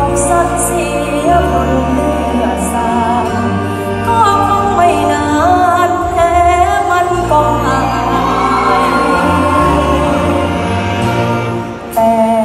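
Live Thai luk thung band music: a singer's melody over a band with a held bass line. The music dips briefly near the end, then the band comes back in loudly with drum hits.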